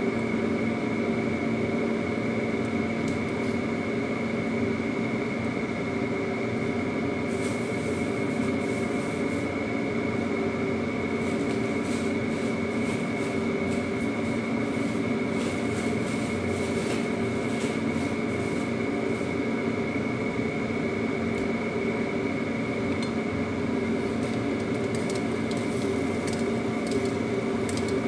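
Kitchen fan motor humming steadily with a few fixed tones, and light intermittent crackling from gourd cooking in the covered wok.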